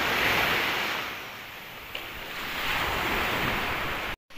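Sea waves washing onto the beach, a steady rushing hiss that swells twice, with some wind on the microphone.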